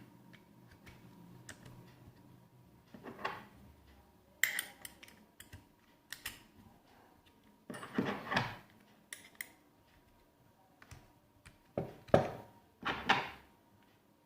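Steel combination spanners clinking and clattering as they are handled, in a string of separate sharp metallic knocks, some ringing briefly.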